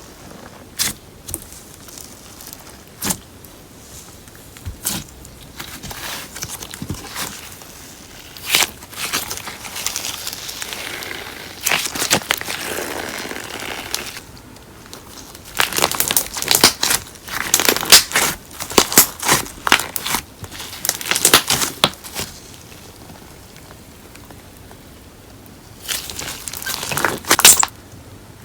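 Slime being kneaded together with paper clay by hand, giving sticky crackles and clicks. Scattered at first, the crackling comes in dense clusters in the middle and again briefly near the end.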